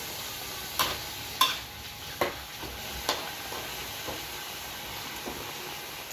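Food sizzling in a hot pan as it is stir-fried, with a spatula knocking sharply against the pan four times in the first three seconds and more lightly after.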